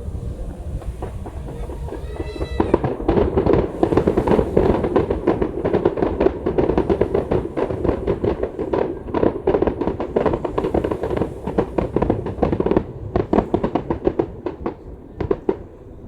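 Fireworks going off: a brief rising whistle about two seconds in, then a dense barrage of rapid bangs and crackles, thinning to scattered pops near the end.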